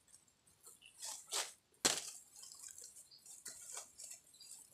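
Tree bark being stripped by hand from a small trunk: a few short ripping tears, the sharpest about two seconds in.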